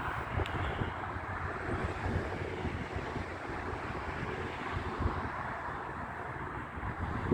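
Wind buffeting the microphone: a steady rumbling rush of outdoor wind noise.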